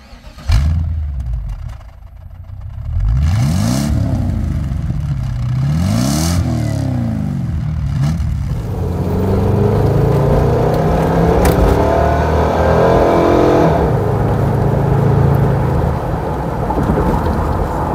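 1994 Buick Roadmaster's 5.7-litre LT1 V8 heard at the tailpipes: a loud burst just after the start, then two revs whose pitch rises and falls. From about eight seconds in, the engine and road noise of the car under way, its pitch climbing as it accelerates.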